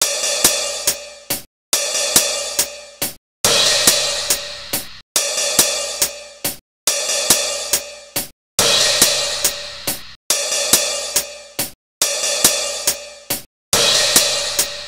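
A short drum loop of a cymbal wash with a few sharp hi-hat and snare hits, fading and then cutting off into a moment of dead silence. The same clip repeats about every 1.7 seconds, about nine times.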